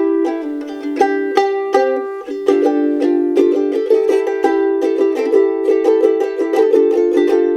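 Handmade soprano ukulele with an Adirondack spruce top and Tasmanian blackwood back and sides, played as an improvised tune: notes plucked in quick succession and left to ring into each other, with added reverb.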